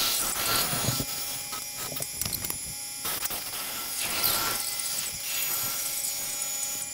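Bandsaw running and cutting a slit up the center of a wooden chair back splat: a steady motor-and-blade hum, with the noise of the blade in the wood swelling and easing as the board is fed.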